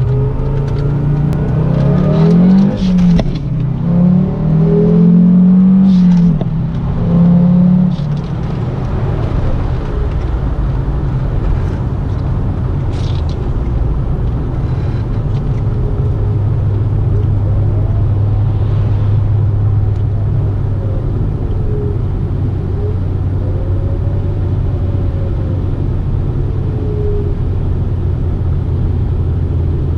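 Audi S6's turbocharged engine revving up and down several times over the first eight seconds, then running at a steady, even pitch. A faint turbo whine rises and falls above the engine note now and then.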